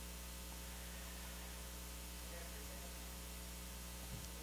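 Steady electrical mains hum with a faint hiss from the sound system, with a soft low bump near the end.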